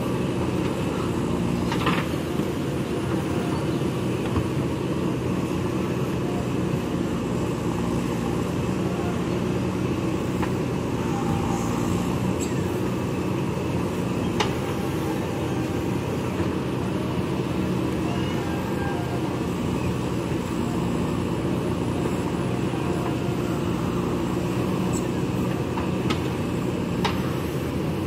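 JCB backhoe loader's diesel engine running steadily under load while the backhoe digs mud, with a few sharp knocks.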